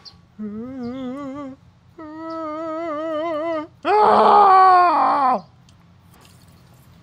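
A character voice for a puppet dinosaur making three quavering, wordless whimpers, the second higher than the first. The third is the loudest and slides down in pitch as it ends. The whimpers sound nervous and frightened.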